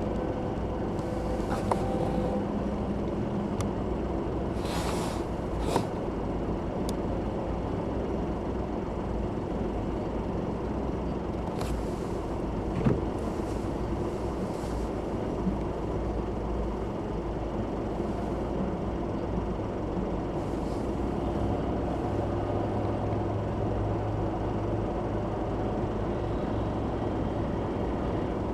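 Container freight train running past a level crossing: a steady low rumble, with a short air hiss about five seconds in and a few scattered clanks.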